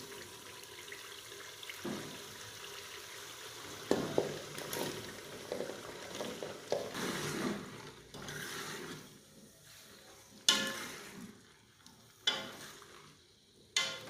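Chicken frying in masala in a metal pot, sizzling as a metal spoon stirs and scrapes through it. After about eight seconds, once the chopped bell peppers are in, the sizzle dies down, and a few sharp knocks of the spoon against the pot stand out near the end.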